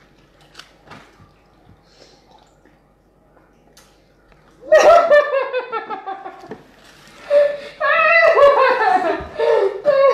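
A few faint light clicks at first, then from about halfway a child's high-pitched voice calling out and laughing, loud and with sweeping rises and falls in pitch.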